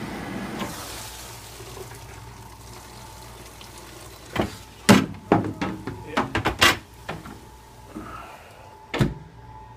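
Lamber commercial dishwasher being handled: a faint steady hum, then a quick run of sharp knocks and clunks about halfway through and one more clunk near the end.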